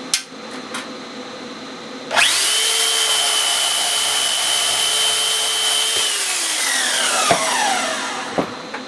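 Electric power tool switched on about two seconds in, running at a steady high whine with a loud hiss for about four seconds, then switched off, its pitch falling as it spins down.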